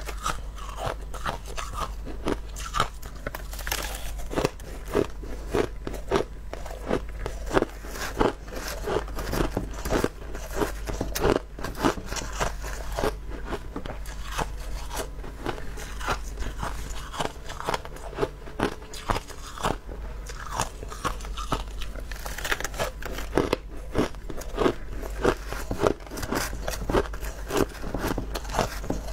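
Crushed ice being chewed: rapid, closely spaced crunching and crackling of ice between the teeth, with a steady low hum underneath.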